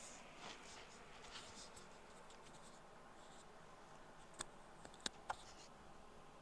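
Near silence: room tone with a few faint taps and scratches of hands handling things on a desk.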